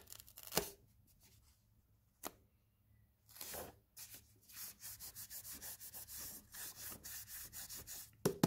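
Fingers rubbing and pressing an adhesive-backed padding strip onto a steel battery bracket: a couple of light clicks, then a short scratchy rub, then a run of short rubbing strokes, several a second, through the second half.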